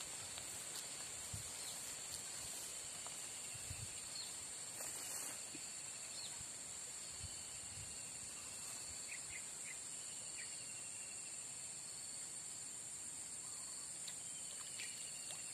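Steady high-pitched chorus of insects, like crickets or cicadas, holding one unbroken drone, with a few faint short chirps and soft low thumps.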